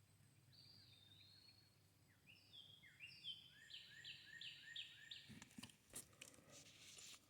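A songbird singing faintly: a series of down-slurred whistled notes that settles into a run of repeated notes, about three a second, around four seconds in. Near the end come a few sharp knocks and a brief rustle.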